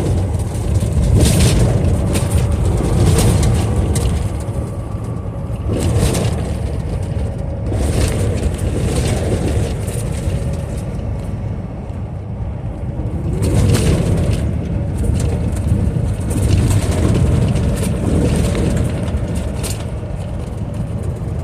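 Semi-truck engine and road noise inside the cab while cruising on the highway: a steady low rumble with a few brief louder swells of noise.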